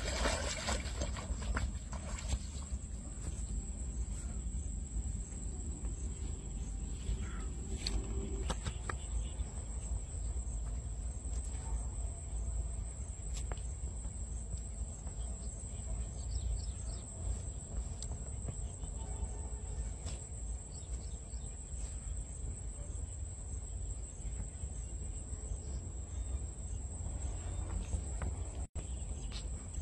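A hooked wallago catfish splashes at the pond surface in the first second or so. After that comes a steady high insect buzz over a low rumble, with scattered faint clicks and rustles as the fish is handled on the grass.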